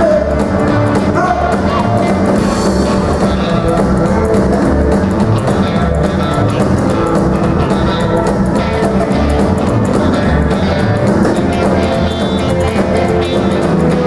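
Live rock-and-roll band playing, with drum kit, upright double bass slapping out the low pulse, electric and acoustic guitars and keyboard, and a male lead singer.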